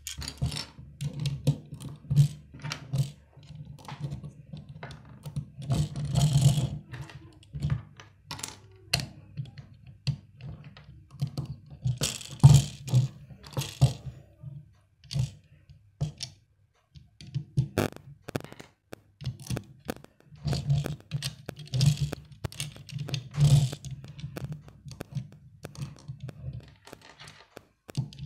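Plastic Lego bricks clicking and snapping together by hand, with loose pieces knocking and scraping on a wooden tabletop as they are picked through. Many short clicks, broken by a few louder spells of rattling and scraping.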